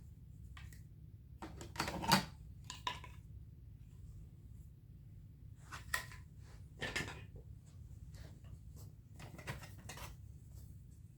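Plastic attachment tools being pulled off the back of a Hoover Windtunnel upright vacuum and handled: scattered plastic clicks and knocks in small clusters, a few seconds apart.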